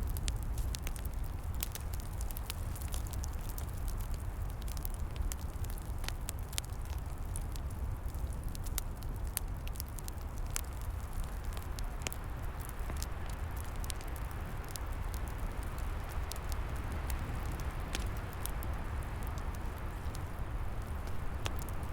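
Log fire crackling, with many sharp pops and snaps over a steady low rumble. Wind rushes through the trees, growing stronger in the second half.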